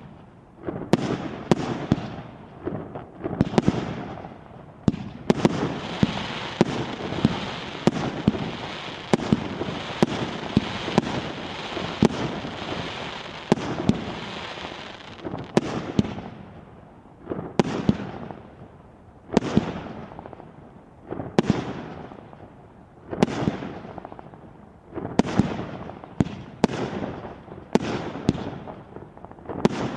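Fireworks salute going off: a quick run of sharp bangs, then a dense crackling from about five seconds in to about fifteen, then single bangs every second or two, each trailing off.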